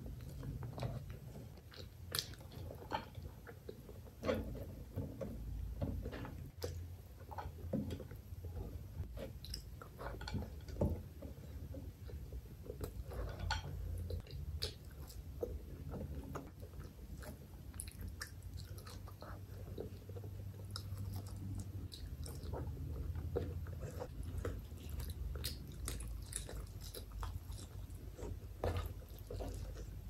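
A person chewing a mouthful of rice and spicy chicken curry close to the microphone, with many short mouth clicks and smacks throughout.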